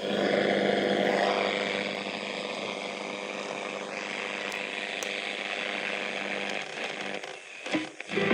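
Philips Philettina transistor radio's speaker hissing with shortwave static, tuned off-station. Near the end the noise dips and warbles as the tuning knob is turned toward a station.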